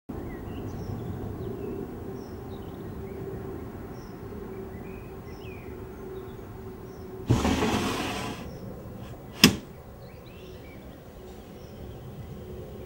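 A steady low room or outdoor ambience with faint, scattered high chirps. About seven seconds in a brief rushing noise rises and fades over about a second, and shortly after comes a single sharp click.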